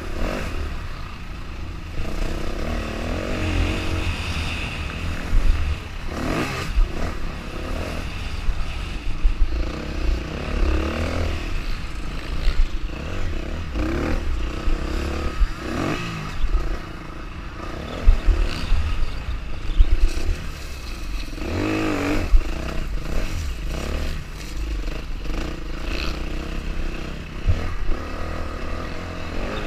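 Dirt bike engine revving up and down again and again while ridden over a rough off-road track. A heavy low rumble of wind on the helmet-mounted microphone runs under it, with scattered knocks and clatter from the bumps.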